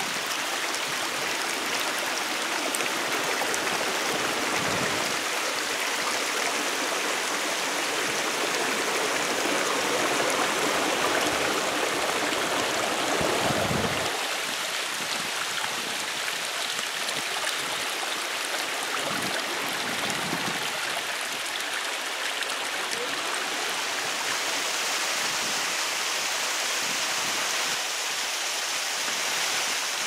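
Rushing mountain water, a steady hiss with no other sound, slightly fuller and deeper until about fourteen seconds in.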